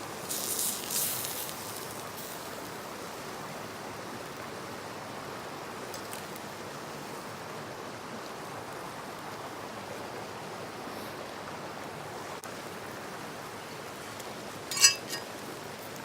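Steady rush of a river flowing. About half a second in, a brief high hiss lasts about a second, and near the end comes a single sharp clink with a short ring.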